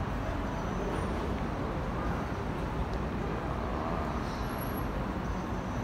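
Steady hum of city street traffic, with no single vehicle standing out.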